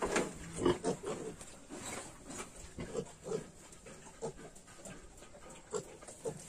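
Yorkshire pigs, a nursing sow and her 22-day-old piglets, grunting: short low grunts coming in quick runs, fewer and fainter in the second half.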